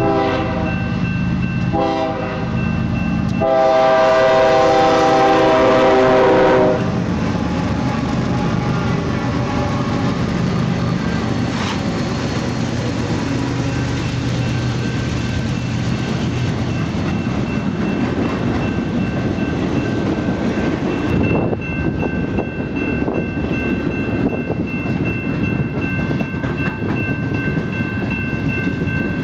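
Freight locomotive horn sounding three blasts, the last and loudest about three seconds long, as a BNSF double-stack intermodal train approaches a grade crossing. The train then passes close by with a steady rumble and clatter of wheels on rail, and a steady high ringing tone joins in near the end.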